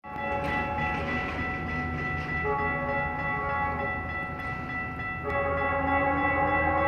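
Approaching Metrolink commuter train sounding its multi-chime horn, a sustained chord that shifts twice, over a low rumble.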